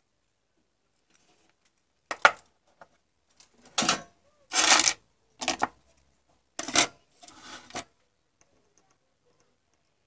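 Circuit boards and tweezers handled on a wooden workbench: about six short clattering and scraping noises between about two and eight seconds in.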